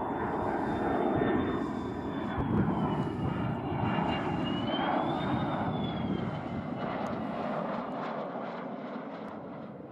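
F-16D Barak fighter jet on landing approach with its gear down. Its jet engine makes a steady roar with a thin high whine that dips and rises in pitch, and the sound fades over the last few seconds as the jet passes.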